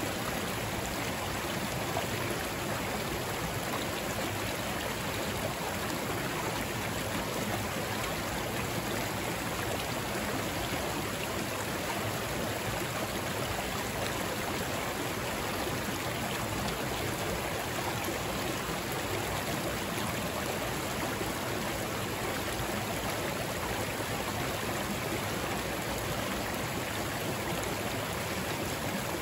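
Creek running over rocks: a steady, unbroken rush of water.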